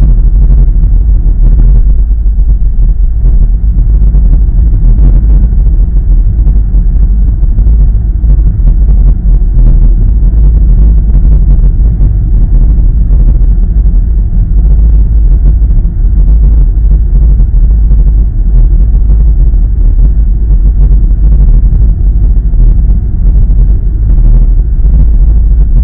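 Car driving at road speed, heard from inside the cabin: a loud, steady low rumble of road and engine noise.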